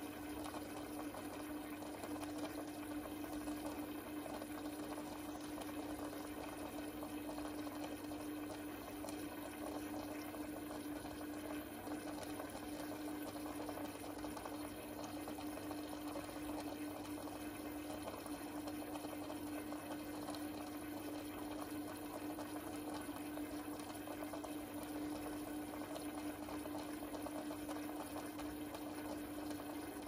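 Aquarium pump running with a steady, unchanging hum over a constant bubbling and trickling of water.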